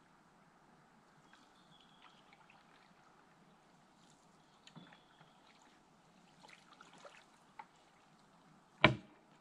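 Canoe being paddled: faint water trickling and dripping with the strokes, and a few small taps. Near the end comes one sharp, loud knock.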